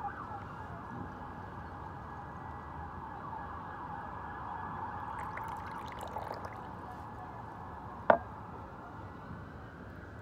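Emergency-vehicle siren wailing steadily, its pitch slowly falling and rising. Tea pours in a thin stream into a cup about six seconds in, and there is a single sharp knock about eight seconds in.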